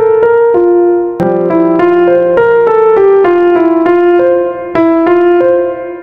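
Background piano music: a melody of ringing notes, a new one every few tenths of a second, with a low bass note joining about a second in.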